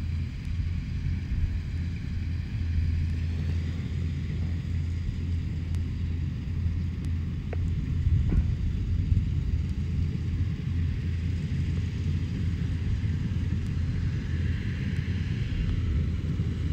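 Diesel engine of a Kubota DC93 rice combine harvester running steadily under load as it harvests, a low even rumble, with a couple of faint clicks a little past the middle.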